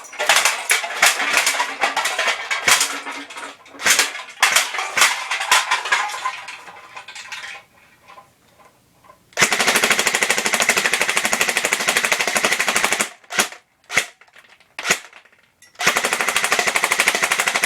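Airsoft AK-74U replica firing on full auto. First come several seconds of short, ragged bursts, then a steady rapid burst of about three and a half seconds, a few single shots, and another rapid burst near the end.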